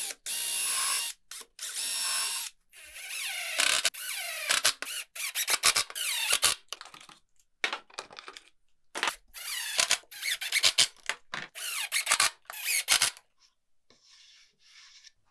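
Cordless drill running in a series of short bursts, about a dozen in all, as screws are driven to join the plywood pieces of a jig; each run is a high whine, some rising in pitch as the motor spins up.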